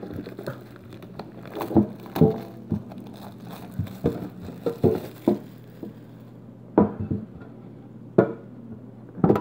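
Plastic shrink-wrap crinkling and tearing as it is stripped off a metal trading-card collector's tin, with irregular sharp clicks and taps from the tin being handled.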